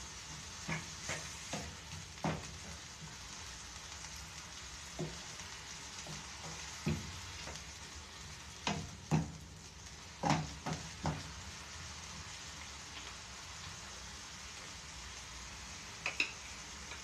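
Ground pork sizzling steadily in a frying pan while a wooden spoon stirs it, knocking against the pan a dozen or so times. The stirring stops about two-thirds of the way through, leaving only the sizzle apart from two quick knocks near the end.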